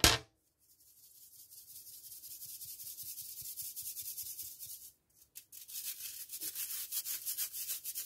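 Stainless steel mesh sieve shaken over a metal mixing bowl, sifting flour: a fast, rhythmic fine rasping hiss in two spells with a brief pause about five seconds in. A sharp knock sounds right at the start.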